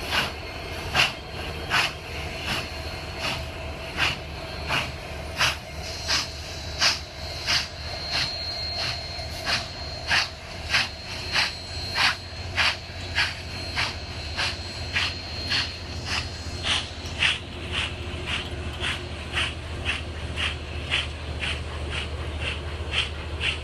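Passenger train cars rolling past, their wheels clicking over the rail joints about twice a second over a steady low rumble; the clicks grow softer and closer together in the last few seconds.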